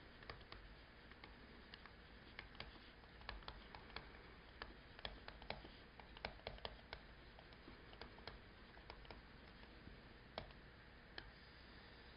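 Faint, irregular clicks and taps of a stylus on a tablet screen while hand-writing, over near-silent room tone.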